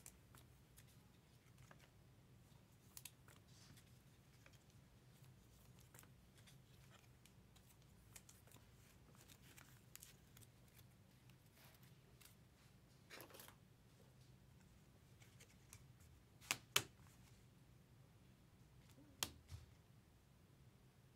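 Near silence with faint, scattered clicks and rustles of trading cards and plastic card holders being handled. A few sharper clicks come about three-quarters of the way through, over a low steady hum.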